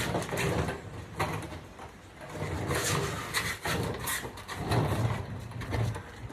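Things being picked up and moved about: an irregular run of knocks, clunks and scrapes, like rummaging for a tub of grease among tools and parts.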